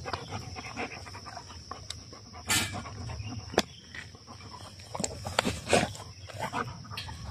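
Dogs sniffing and snuffling at close range, their noses right at the microphone, with a few short, sharp sniffs scattered through.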